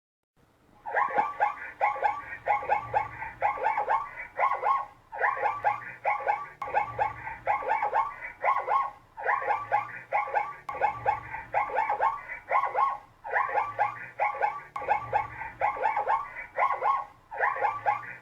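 AI-generated zebra calls: after about a second of silence, a run of short repeated yelping calls, about three a second, in bouts of a few seconds with brief pauses between them.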